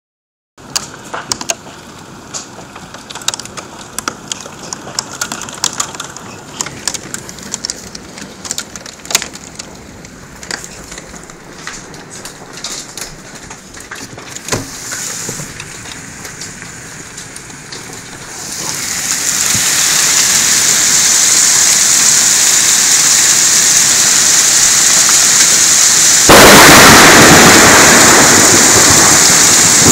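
Hailstorm: scattered hailstones strike with sharp cracks at first, then about 18 seconds in the fall swells into a dense, steady rush of hail and rain that gets louder still near the end.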